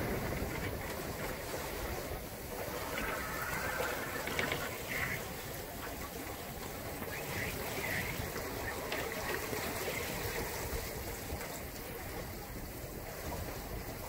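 Steady rush of wind and water around a sailboat moving under sail in a strong breeze.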